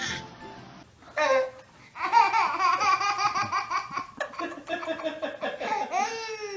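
A baby laughing: a short high squeal about a second in, then long, high-pitched laughter from about two seconds on, ending in a falling squeal.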